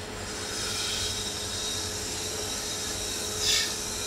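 Hot air rework station blowing a steady hiss of hot air onto a MacBook Air logic board to desolder a shorted capacitor, with a brief louder high hiss about three and a half seconds in.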